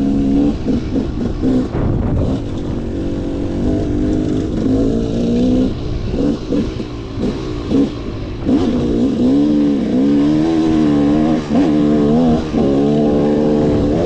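KTM 300 two-stroke dirt bike engine running under load as it is ridden, the revs climbing and dropping over and over with throttle and gear changes, in quicker swings from about six seconds in.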